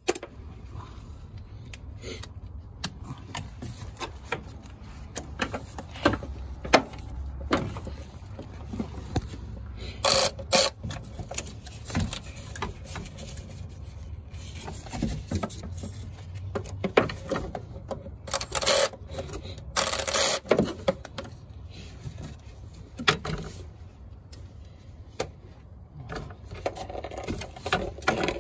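A ratchet wrench working a bolt, with bouts of rapid clicking, mixed with metal tool clanks and scrapes. A low steady hum runs underneath.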